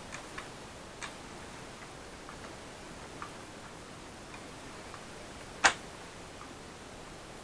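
A few light, scattered clicks and taps of small hard parts being handled, with one sharp, much louder click about two thirds of the way through, over a steady faint hiss.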